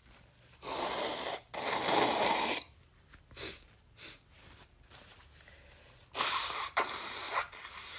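A person sneezing twice, about five seconds apart; each sneeze comes as a pair of breathy bursts, with a few short sniffs between them.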